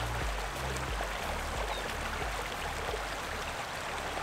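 Flowing stream water, a steady rushing hiss. Low bass notes of background music run under it and fade out about three and a half seconds in.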